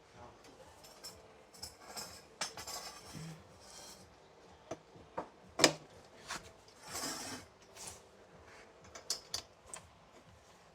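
Garage door opener parts and tools being handled during assembly: scattered metallic clicks and light knocks, with some scraping and a short rustle, the sharpest click about halfway through.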